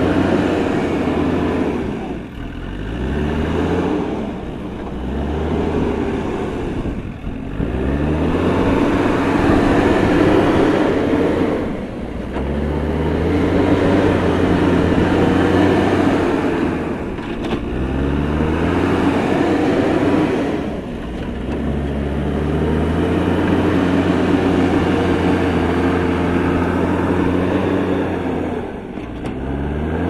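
Diesel engine of a JCB backhoe loader working hard, revving up and easing back again and again every few seconds as the machine drives and pushes soil with its front bucket.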